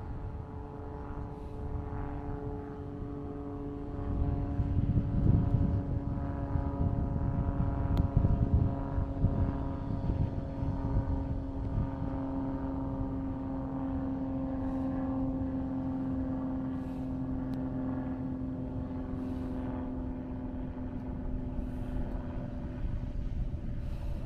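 A steady engine drone that holds nearly throughout, with a low rumble swelling about four seconds in and easing off after ten.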